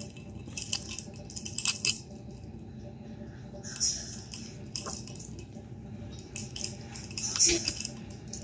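A few short sips from a stemmed glass, heard as brief airy slurps, mixed with small clicks and knocks of the glass being handled, over a low steady room hum.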